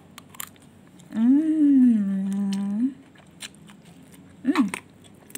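A person's wordless voice: one long tone about a second in that rises, falls and then holds for nearly two seconds, and a short rising-falling one near the end, among faint light clicks.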